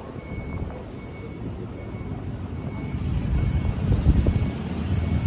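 Low rumble of passing city traffic that swells about three to four seconds in, with a faint high beep repeating steadily underneath.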